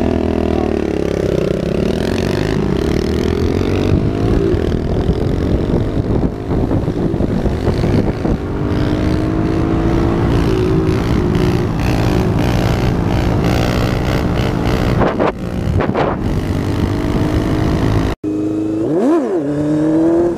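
Motorcycle engines running and revving, their pitch rising and falling. About eighteen seconds in, a hard cut to a sport motorcycle's engine revving sharply up and down.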